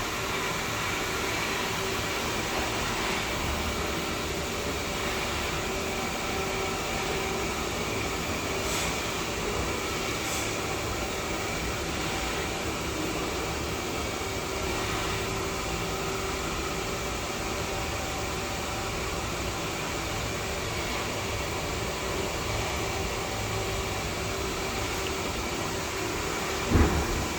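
Steady mechanical running noise with a constant hum, unchanging in level, broken once near the end by a short, loud thump.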